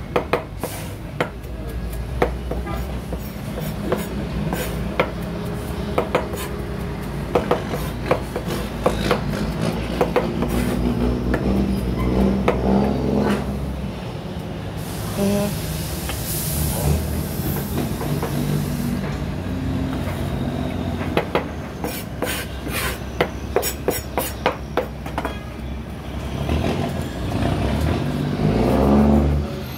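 Knife tapping and scraping on a plastic cutting board as conch salad is chopped and gathered, over the steady low running of a vehicle engine. A hiss lasting a few seconds comes about halfway through.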